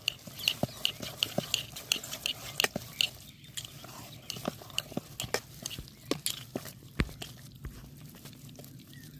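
Thick grated-cassava batter being stirred to work in food colour: a run of irregular sharp clicks and squelches, several a second.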